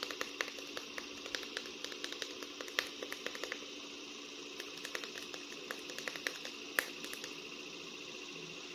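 Irregular light clicks and taps of plastic action figures being handled, over a steady faint hum. The clicks die away near the end.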